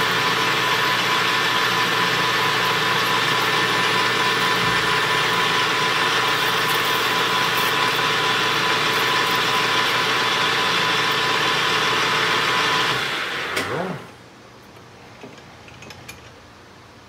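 Small metal lathe running steadily with a whine of several steady tones, then switched off about thirteen seconds in, its motor and gearing winding down to a stop. A few light clicks follow.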